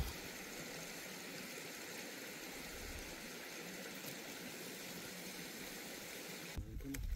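Steady rush of a mountain stream, an even hiss of flowing water. Near the end it cuts off abruptly, giving way to louder low rumbling and a few clicks.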